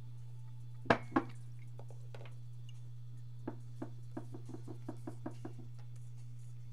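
Two sharp knocks on the desk, close together about a second in, then a quick run of about a dozen light taps halfway through, over a steady low hum.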